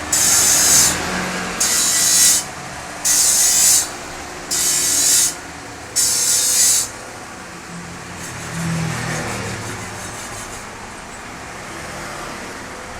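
Chinese cleaver blade being ground against a wet grinding stone in five scraping strokes, each under a second long and about a second and a half apart. The strokes stop about seven seconds in, leaving a quieter steady background.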